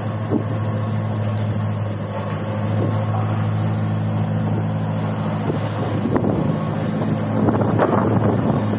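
Engine of an articulating 4x4 boom lift running steadily with a low hum as it creeps forward, with a run of knocks and clatter in the last few seconds.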